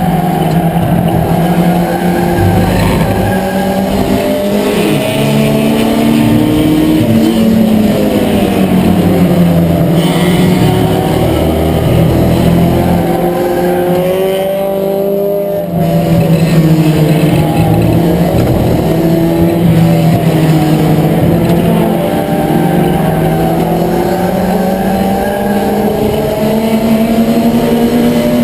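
Ford Escort race car's four-cylinder engine heard from inside the cockpit, revving up and falling back again and again under racing load, easing off briefly about halfway through.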